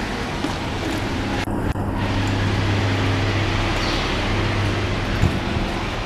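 Street traffic noise, with a vehicle engine's low hum rising through the middle and fading near the end. There is a brief knock a little after five seconds in.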